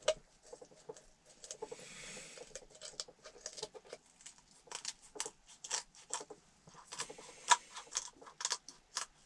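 Kitchen scissors snipping through a raw chicken's backbone and ribs, a run of irregular sharp snips and bone cracks that come thicker in the second half.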